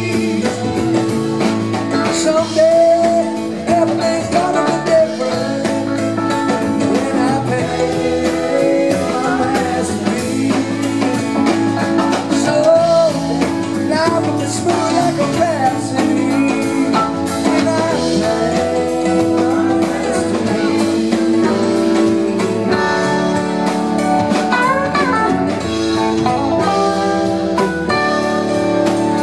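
Live rock band playing on electric guitars, electric bass and drum kit, with a steady drum beat.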